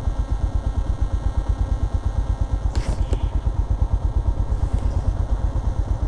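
Motorcycle engine idling, a steady, rapid low putter with the bike standing still. A brief higher click sounds about three seconds in.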